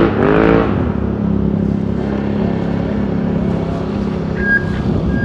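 Motor vehicle engine running steadily at a constant speed.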